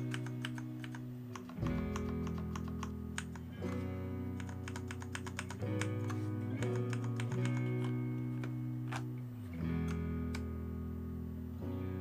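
Background music with plucked guitar and sustained low notes. Over it, the keys of a Varmilo tenkeyless mechanical keyboard click in short runs of presses.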